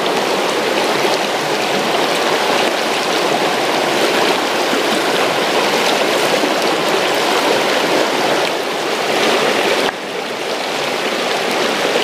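Mountain stream water rushing steadily, with a small sudden drop in level about ten seconds in.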